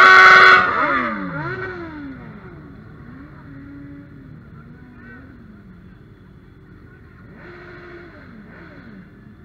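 A loud, steady note with many overtones cuts off about half a second in. After it, several motorcycle engines run at low revs, their pitch falling and rising as the bikes roll past slowly and blip their throttles.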